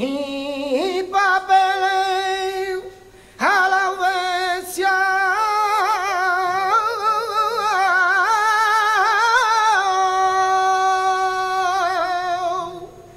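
Male flamenco singer singing a toná without guitar, in long melismatic lines with much wavering ornament. A short phrase, a breath about three seconds in, then one long ornamented phrase that dies away near the end.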